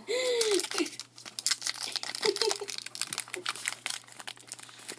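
Foil baseball card pack wrapper crinkling and crackling as it is handled and torn open, with many quick irregular crackles.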